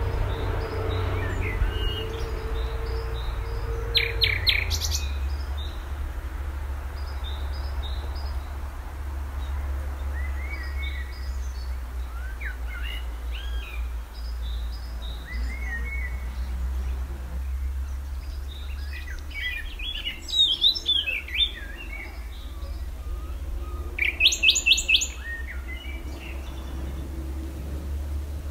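Songbirds chirping and calling, with louder clusters of quick repeated high notes about four seconds in, around twenty seconds in and again a few seconds before the end, over a steady low rumble.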